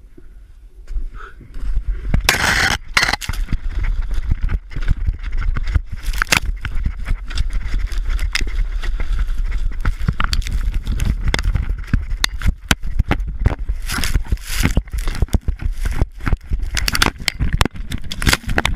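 A snowboarder and his action camera tumbling down a steep snow and rock slope in a fall. After a quiet first second there is a continuous scraping rush of snow against the camera and body, broken by many hard knocks of impacts.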